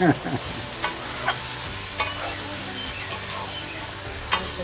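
Pork frying in a kadhai, a steady sizzle with a few sharp scrapes or knocks of the spatula against the pan while it is stirred.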